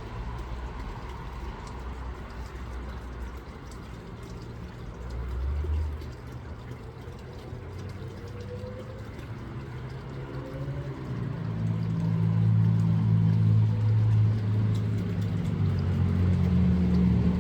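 A motor vehicle's engine running as a low rumble, rising in pitch around the middle, then running louder and steadier through the second half.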